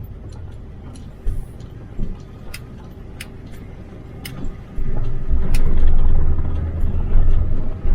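Road and engine noise inside a moving four-wheel-drive vehicle: a steady low rumble with scattered light clicks and rattles, swelling into a louder rumble from about five seconds in.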